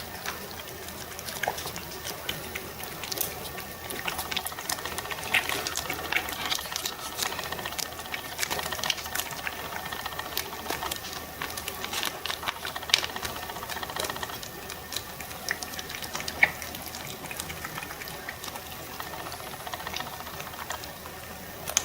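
A cat licking and smacking at a squeeze-tube treat, a wet, continuous lapping, with scattered sharp clicks as its claws are trimmed with a nail clipper.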